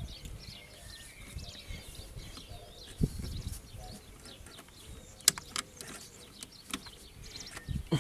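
Scattered clicks and knocks of a screwdriver tightening a screw on a car engine's intake hose, with a sharp click about five seconds in the loudest; birds chirp throughout in the background.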